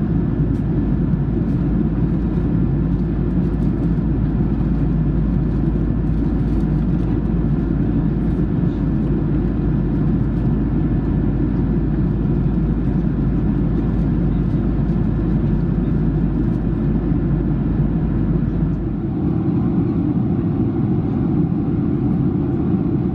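Steady cabin noise of a Boeing 737-700 in flight, heard from an economy seat: the constant rumble and hiss of its engines and airflow. The deepest part of the rumble drops away about nineteen seconds in.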